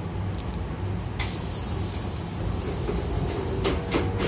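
Hankyu train's pneumatic double sliding doors closing: compressed air hisses loudly from about a second in as the door engines drive the leaves shut, ending in a few knocks and a clunk as the doors meet. The train's steady low hum runs underneath.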